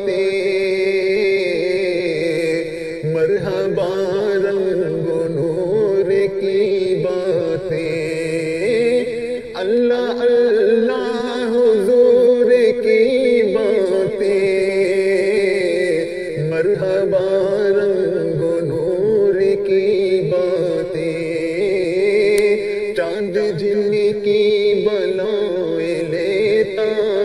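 Devotional Urdu salam (naat) vocal music: a steady, continuous chanted vocal line with a wavering pitch, sung as an interlude between the lyric verses.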